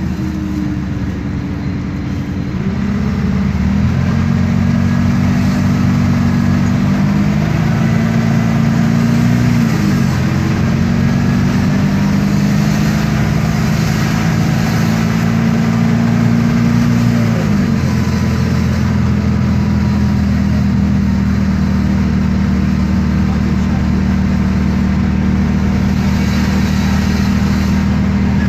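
MAN D0836 LOH inline-six diesel of an Isobus City 1200 city bus pulling and accelerating through its ZF Ecomat six-speed automatic. The engine note climbs, dips and climbs again at an upshift about ten seconds in, then drops to a lower steady pitch a little past halfway, with a faint transmission and differential whine rising above it.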